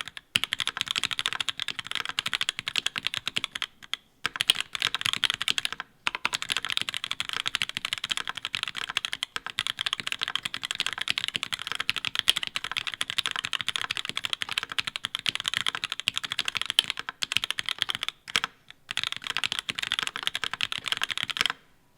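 Fast continuous typing on a mechanical keyboard fitted with Linworks LINx3 Retro keycaps, a dense run of key clicks with a few brief pauses. The typing stops just before the end.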